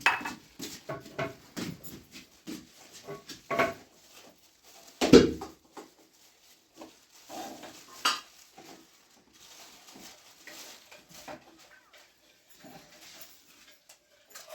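Dishes and pots clinking and knocking in an irregular clatter, with one heavier knock about five seconds in.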